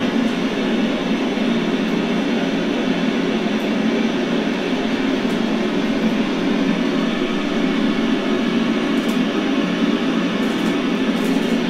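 Amateur radio receiver hissing with steady static on an empty channel, with no station answering the call. The hiss switches on abruptly and then holds level.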